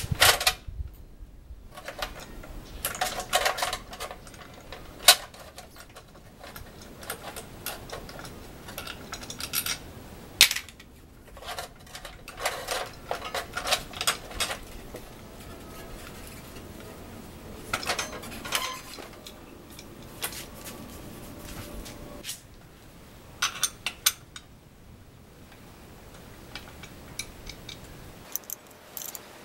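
Small metal parts of a bicycle's rear axle and hub clinking and rattling in clusters as they are handled while the rear wheel is taken out, with quieter gaps between.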